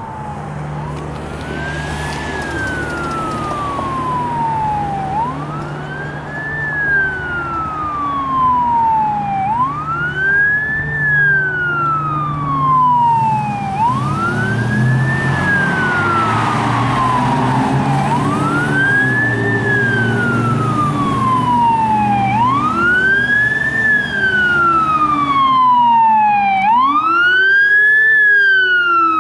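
Fire engine siren on a slow wail, sweeping quickly up and sliding more slowly down about every four seconds. It grows louder as the truck approaches, with the low rumble of its engine underneath.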